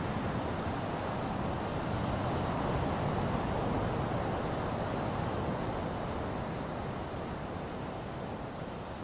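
Ocean waves washing ashore in a steady rush of surf, swelling about two to four seconds in and then slowly easing off.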